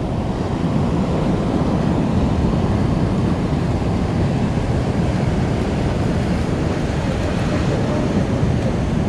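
Steady rush of sea water surging and washing over rocks and seaweed in a shallow tidal channel.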